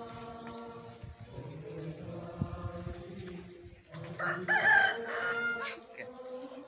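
A rooster crowing once, about four seconds in, loud against faint steady background tones.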